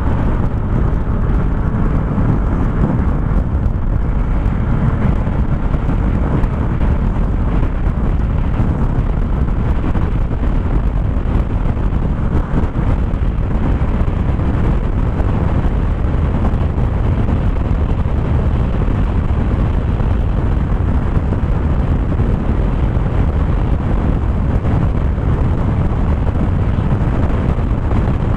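Loud, steady wind rush buffeting the microphone on a Yamaha NMAX scooter accelerating at full throttle toward its top speed of about 110 km/h.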